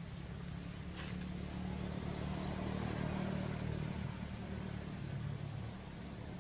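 Motorbike passing on a road, its engine hum growing louder to a peak about three seconds in and then easing off.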